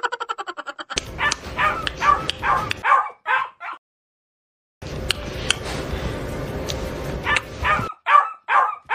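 Husky yipping and grumbling in runs of short, rapid calls, a few per second, with a pause partway through, in protest at being hugged and kissed.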